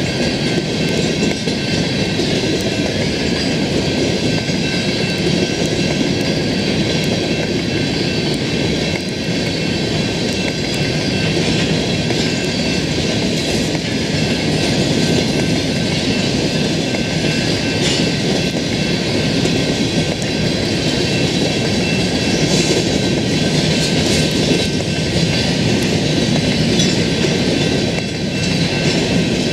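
Lake State Railway freight train rolling steadily past at close range: continuous rumble and clatter of the cars' wheels on the rails, with a set of steady high ringing tones over it.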